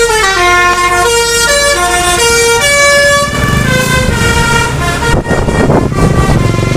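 Bus 'basuri' musical air horn playing a melody of held notes stepping up and down. A low rumble joins it about halfway through, and a short burst of noise comes about five seconds in.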